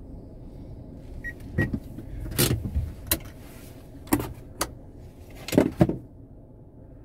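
A series of sharp clicks and knocks from handling things inside a parked car, about seven in all, some in quick pairs, over a steady low rumble. Two short high beeps sound about a second and a half in.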